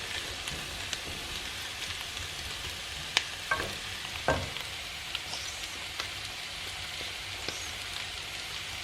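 Potatoes and artichokes sautéing in a pan: a steady sizzle with a few sharp clicks and knocks as the utensil stirs the pan, the loudest a little after three seconds and around four seconds in.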